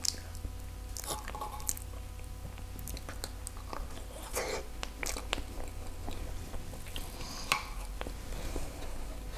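Close-miked eating sounds of soft durian-cream crepe being bitten and chewed, with scattered small clicks and a sharper click about seven and a half seconds in.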